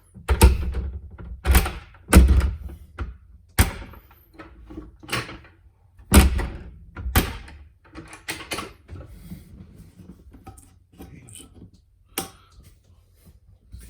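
Bathroom door and its repaired handle being worked: a series of sharp clunks and knocks from the latch and the door against its frame, the loudest in the first few seconds and then sparser. The handle now latches but no longer locks.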